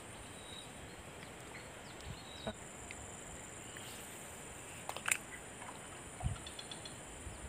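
Quiet outdoor ambience: a faint steady high hiss, with a few faint short clicks and a dull knock, the sharpest click about five seconds in.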